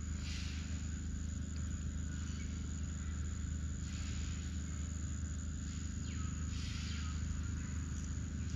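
Steady outdoor background noise: a constant low hum under an even hiss that swells softly a few times.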